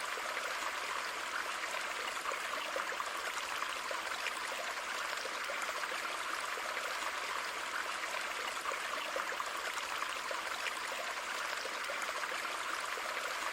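Steady flowing water with a fine trickling texture, holding an even level throughout.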